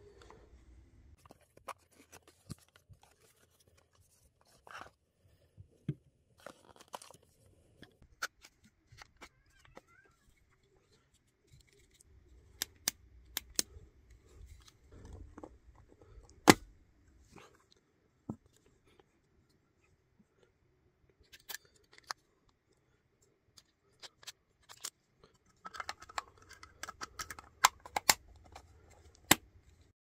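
Hands unpacking and handling a small plastic desktop vacuum cleaner: scattered sharp clicks and snaps of the plastic housing, the loudest about halfway through, with short rustles and scrapes of the cardboard box and packaging. The vacuum's motor is not running.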